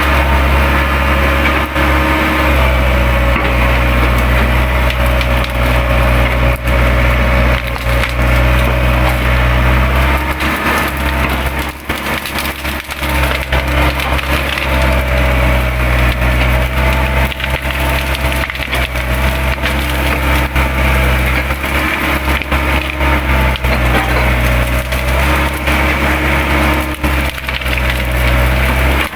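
Hydraulic excavator's diesel engine working under load, its note rising and easing every few seconds, with branches and brush cracking and splintering as the machine tears through undergrowth.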